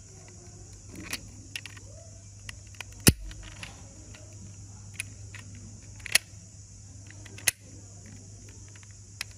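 Sharp clicks and small metallic rattles from a die-cast metal toy Bentley SUV being handled and turned over in the fingers: about six separate clicks, the loudest about three seconds in, over a steady low hum.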